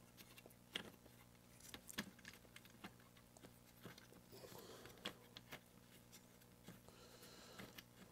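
Faint, irregular clicks and light taps of hands handling a guide scope and its 3D-printed mount, with a brief rustle about halfway through.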